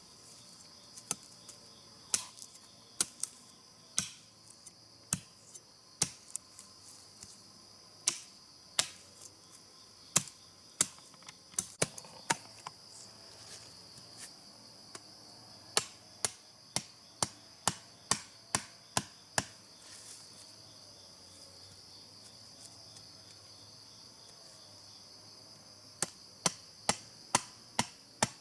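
Repeated sharp knocks of a tool striking, like chopping, scattered at first and then in steady runs of about two a second, with a pause of several seconds before they resume near the end. A steady high insect chirring runs underneath.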